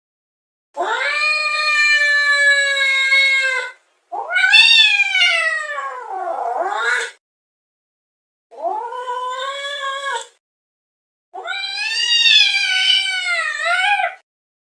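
Domestic cat yowling in four long drawn-out calls, each two to three seconds, with the pitch wavering and bending. The second call slides downward near its end.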